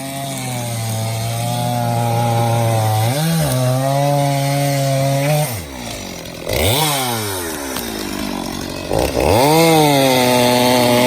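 Stihl chainsaw running at high revs while bucking black locust logs into firewood. The engine speed drops and climbs back several times, about 3, 6 and 9 seconds in, as the saw is eased off and opened up again between cuts.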